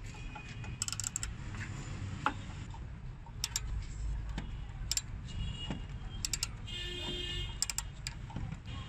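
Ratchet wrench with a T30 Torx bit clicking in short, irregular strokes as it works a badly rusted crash-sensor screw loose, with a brief squeak late on.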